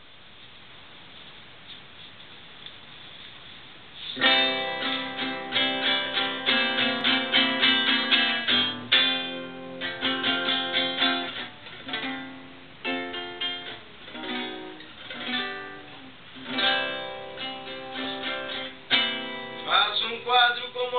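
Acoustic guitar played in strummed and plucked chords, starting about four seconds in after a faint hiss, with short pauses between phrases.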